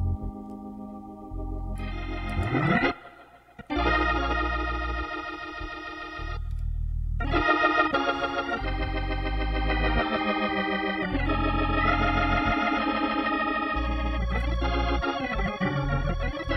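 Hammond B3 organ playing jazz-style held chords with a slightly wavering tone over a left-hand bass line. The sound breaks off briefly about three seconds in, then the playing resumes fuller.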